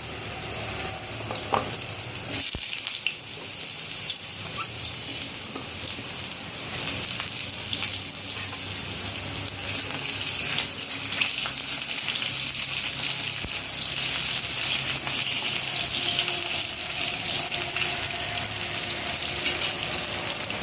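Potato and radish pieces sizzling steadily as they fry in hot vegetable oil, with a few sharp clicks from stirring.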